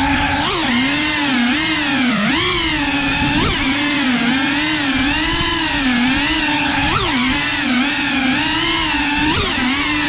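Cinewhoop FPV drone's brushless motors and ducted propellers whining, the pitch wavering constantly with throttle and jumping up in brief sharp spikes about five times.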